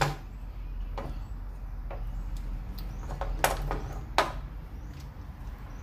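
A handful of sharp clicks and knocks as a small bar clamp and the knife scales are handled on a workbench, the loudest right at the start and about four seconds in, over a steady low hum.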